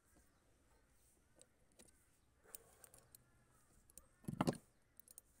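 Faint small metal clicks and taps of a screwdriver working screws into a scooter carburettor body, with one louder, brief clatter about four seconds in.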